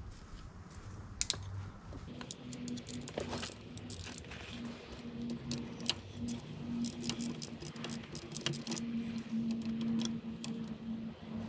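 Metal hand tools clicking and clinking against metal while the front brake hardware is worked loose, with a run of quick clicks from about two seconds in that eases off near the end, and a steady low hum beneath.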